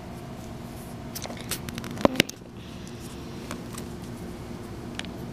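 Handling clicks and taps of a plastic mobile phone and its battery, with two sharp clicks about two seconds in and a few lighter ticks later, over a steady low hum.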